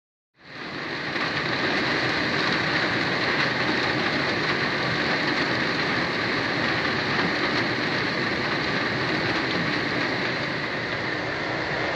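Storm runoff cascading down a building's wall and splashing onto a flooded street, a steady rush of water with rain, fading in during the first second.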